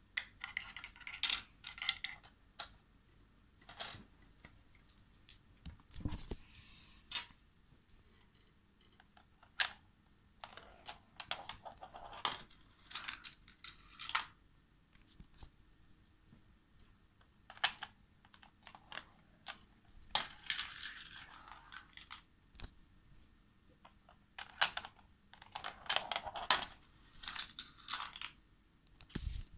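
Marbles rolling and clattering along a plastic marble run and its steel rails: irregular runs of rapid clicks and rattles, with a dull knock about six seconds in.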